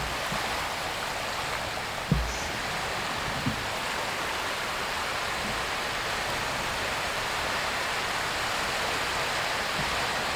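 A steady, even rushing noise, like water or rain, with a few brief low thumps about two and three and a half seconds in.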